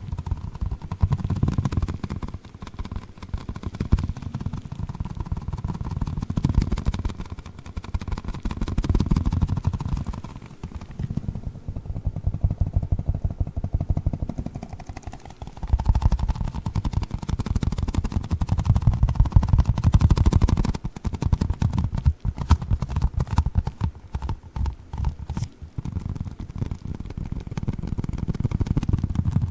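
Giant orbeez water-bead ball squeezed and handled close to the microphone: dense rapid crackling and squishing in repeated surges, quieter for a few seconds in the middle.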